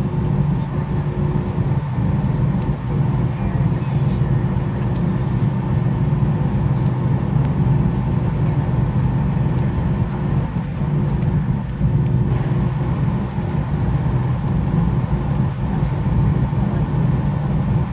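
Cabin noise inside a Boeing 737-900ER taxiing: the CFM56 engines' steady low rumble at taxi power, with a faint steady whine above it.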